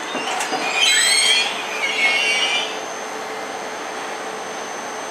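Passenger coaches of a Thello night train rolling slowly past, with high-pitched wheel squeal on the rails about a second in and again around two seconds in, then a steady rolling rumble.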